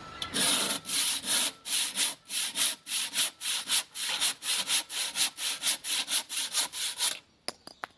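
A handsaw cuts through a block of ultra-lightweight, fibre-reinforced cellular concrete, rasping in quick even back-and-forth strokes, about three to four a second. The sawing stops about a second before the end, and a few light knocks follow.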